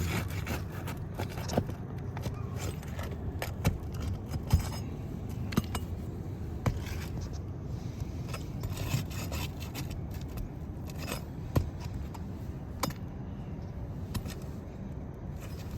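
Roofing nails being pried out from under asphalt shingles with a metal bar: irregular scraping with scattered sharp metallic clicks, over a steady low background noise.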